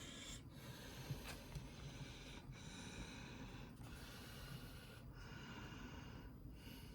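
Ceiling fan running on its high speed: a faint, steady whoosh of moving air.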